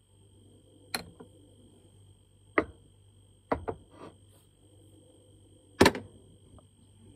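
A few separate clinks and knocks of a spoon and a ceramic coffee mug being handled on a counter, the loudest about six seconds in. A faint steady hum with a thin high whine runs underneath.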